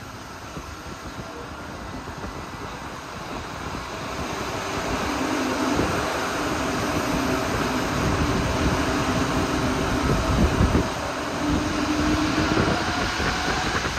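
Alstom NS-16 rubber-tyred metro train running, heard from inside the car. The rolling noise and a steady hum with tones grow louder over the first several seconds and then hold level. A higher tone rises near the end.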